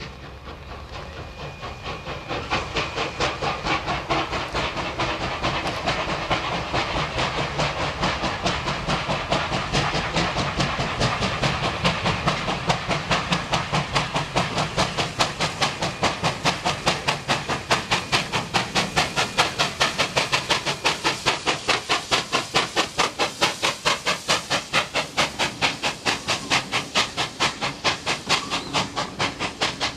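NSW steam locomotive 3801, a C38 class Pacific, working tender first up a grade with slippery rail. Its exhaust chuffs in a rapid, even beat of about four to five a second, with steam hiss, and grows louder over the first few seconds as it comes closer.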